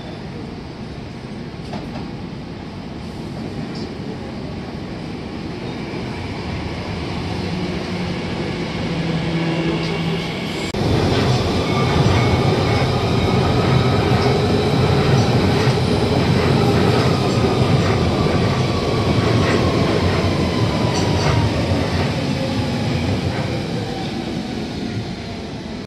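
Train running through the station on the rails: a rumble that builds gradually, jumps up about eleven seconds in and stays loud, with drawn-out tones above it, one of them falling slowly in pitch in the second half.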